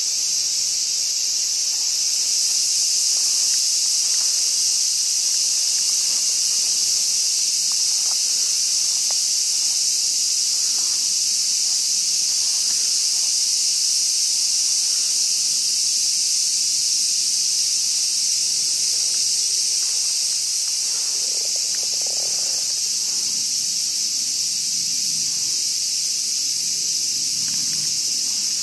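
Steady, high-pitched chorus of summer insects, buzzing without a break.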